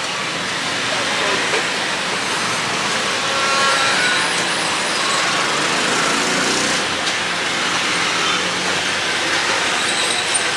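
Steady urban street noise with road traffic passing, an even din without clear breaks.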